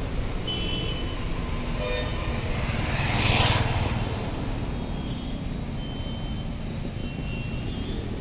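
Roadside traffic noise with a steady rumble. A vehicle passes close, swelling and fading about three and a half seconds in, and a couple of short horn toots sound early on.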